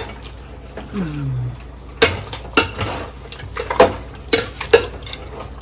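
Metal ladle stirring mutton pieces through thick ground masala paste in a steel pot, knocking and scraping against the pot's sides several times at irregular intervals.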